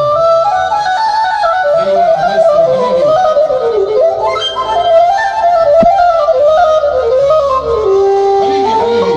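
Live music: a flute-like lead melody winding up and down in small ornamented steps over a low accompaniment.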